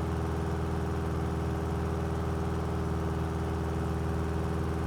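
Cessna 172's piston engine and propeller droning steadily at climb power, running smoothly after its engine repair.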